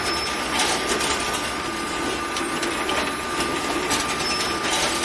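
Automatic egg collection machine and conveyor running in a layer cage house, a steady mechanical clatter with frequent irregular clicks and a thin steady whine.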